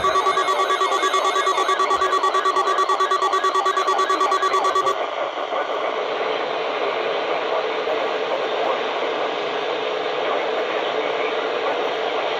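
Electronic alert tone warbling about three and a half times a second over a steady tone. It cuts off abruptly about five seconds in, leaving a steady hiss of radio static.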